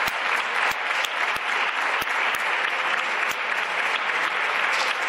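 Applause from a group of deputies on the benches: dense hand-clapping, with several single sharp claps standing out.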